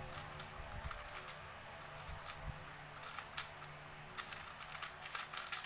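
A speedcube being turned by hand: quick, irregular runs of light plastic clicks as the layers turn, busiest near the end.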